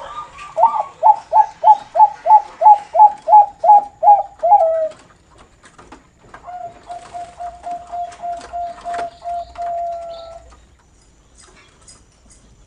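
Zebra dove (Bangkok perkutut) singing its noklak song: a fast run of about a dozen short, evenly spaced cooing notes over about four seconds. After a short pause comes one long, quieter rolling note lasting about four seconds.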